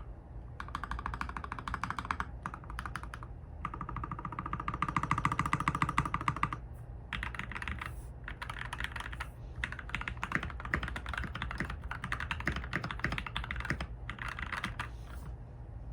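Modded RK61 mechanical keyboard with linear milky yellow switches being typed on fast, a dense run of keystroke clicks broken by brief pauses between bursts.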